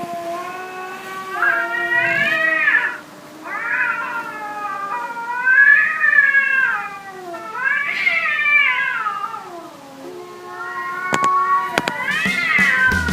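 Cats caterwauling in a fight: a string of long, wavering yowls that rise and fall in pitch, one after another.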